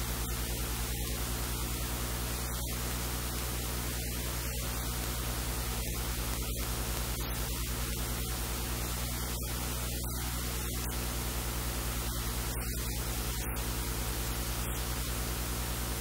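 Steady electrical hiss of static with a low mains hum underneath, unchanging throughout.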